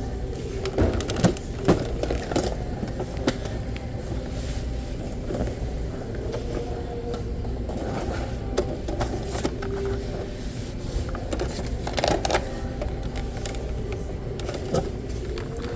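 Store ambience: a steady low hum with scattered clicks and knocks, loudest about a second in and again near twelve seconds.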